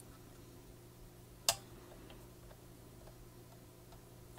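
Faint steady low hum of the Philips 4302 reel-to-reel tape recorder's drive mechanism running, with one sharp click about a second and a half in.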